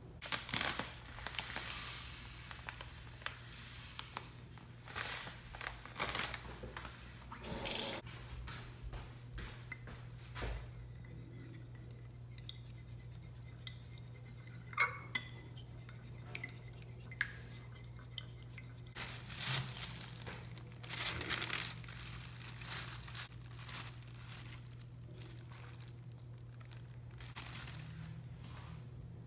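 Food-prep handling: a plastic bag crinkling in irregular stretches, and chopsticks clicking against a ceramic bowl while an egg is beaten, over a steady low hum.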